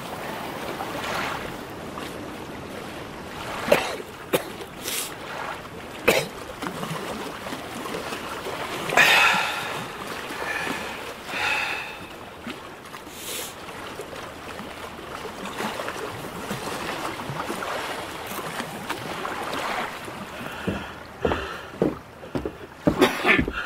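Sea water lapping and sloshing, with scattered splashes and knocks and a quick run of sharper ones near the end.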